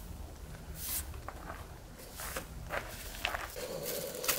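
A few footsteps crunching on gravel, irregular single steps, over a low steady background hum. A steadier, higher hum comes in about three and a half seconds in.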